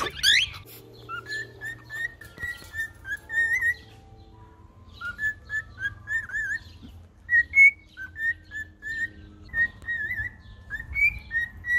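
Cockatiel whistling a string of short, repeated notes with small upward and downward hooks, in three runs with brief pauses. Faint high chirps from other aviary birds sound over them.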